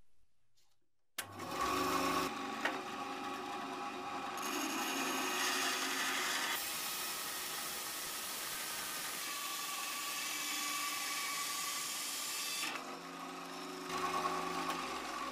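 A power tool running against the workpiece, starting about a second in. Its sound changes in texture several times.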